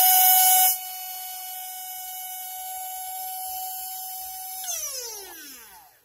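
Masterline SH-P1 hair dryer's small motor running with a steady high whine. Its fan impeller has slipped off the motor shaft, so the motor spins free without blowing air. Near the end it is switched off and winds down in a falling whine.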